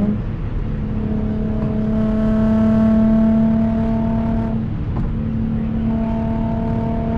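Supercharged 3.0-litre V6 of an Audi S4 running through an AWE Touring exhaust, holding a steady note under load while driving. It swells a little a couple of seconds in and dips briefly about five seconds in before carrying on.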